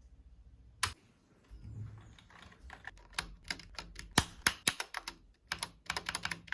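Typing on a Razer Huntsman Tournament Edition keyboard with linear optical switches and custom keycaps. There is a single keystroke about a second in, then a quick, uneven run of keystrokes from about two and a half seconds on.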